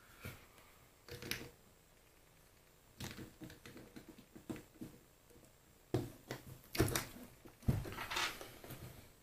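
Small metal lathe parts handled on a workbench: scattered clicks and light knocks, a quick run of small ticks, then louder knocks with brief scraping near the end.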